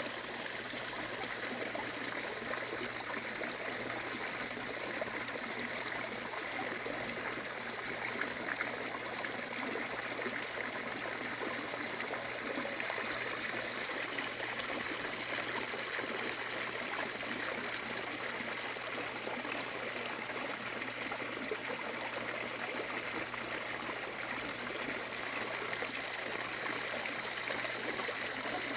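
Water running steadily, a continuous trickling flow like a small stream or water spilling into a pond, with no breaks.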